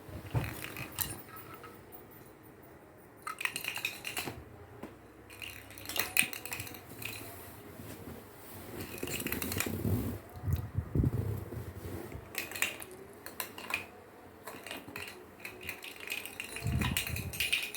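Irregular clicks, taps and knocks of a ball being batted and rolling across a hard floor as a cat plays with it, with a few dull thumps.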